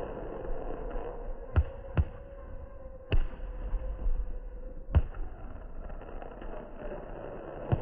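Fireworks going off: about five sharp bangs at uneven intervals over a steady background hum.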